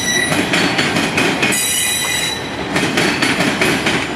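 Freight cars of a Norfolk Southern local rolling past on steel wheels, squealing in high tones that swell and fade, over a steady clatter of wheels over rail joints.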